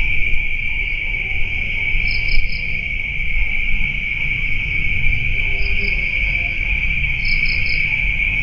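Insects chirping in a steady, shrill chorus, with short three-pulse chirps standing out a few times, over a low rumble.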